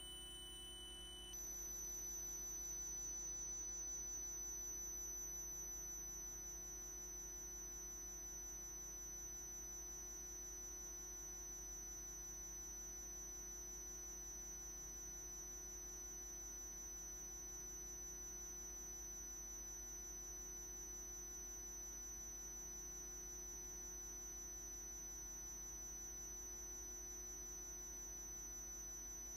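Steady high-pitched electronic whine over a low hum, with no race or crowd sounds; the pitch of the whine jumps once about a second in.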